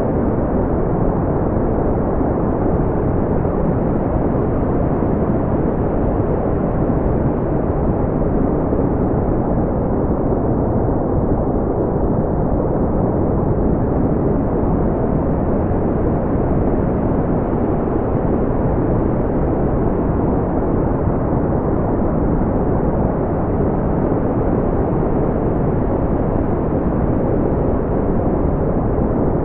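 Steady, deep brown noise: an even, unchanging rumbling hiss weighted to the low end, smoothed so that the high end is cut off.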